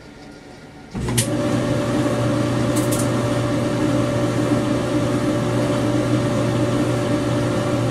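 Freshly rebuilt Kenmore (Frigidaire-built) clothes dryer starting with a click about a second in, then running with a steady motor and drum hum. It runs without the thumping it made before its new drum bearing, belt and glide felts went in.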